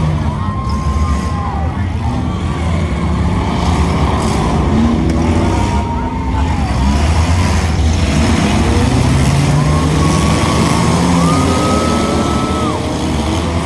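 A field of old street cars, pickups and SUVs racing on a dirt oval, many engines running at once. Their notes rise and fall as the drivers rev, lift and pass, over a steady low rumble.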